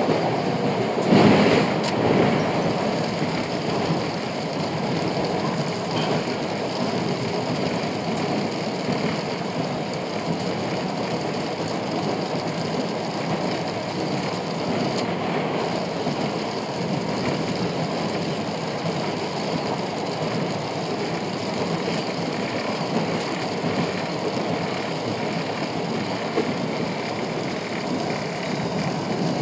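PATCO Speedline train running at speed, a steady rumble and hiss of wheels on rail heard from inside the front car, with a brief louder rush about a second in.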